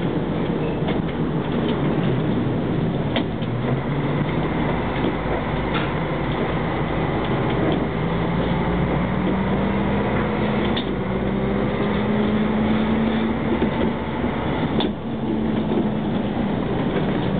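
Karosa B 741 articulated city bus heard from inside while driving, its engine and drivetrain running with a tone that climbs slowly in pitch as the bus gathers speed, over steady road and body noise. A few sharp clicks or rattles stand out.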